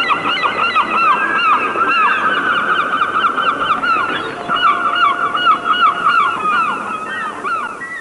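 A dense chorus of many birds calling at once: short arching chirps overlapping without a break, with one long, steady whistled note in the middle.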